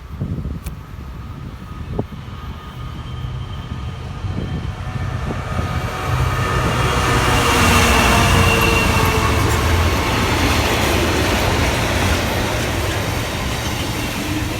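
Two Class 66 diesel freight locomotives working together pass by, their two-stroke V12 engines running with a deep rumble. The sound builds, is loudest about halfway through, then stays loud as the train's wagons roll past.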